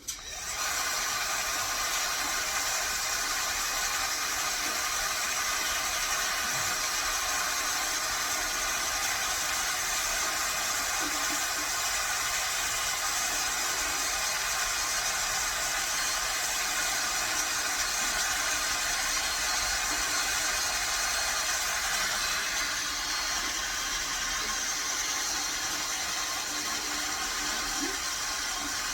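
Electric drill motor running steadily with a high whine and hiss, drilling the second mounting hole for a DRO scale in metal. The high end drops a little about three quarters of the way through.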